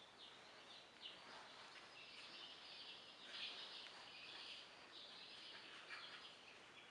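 Faint, irregular high chirping over a low hiss.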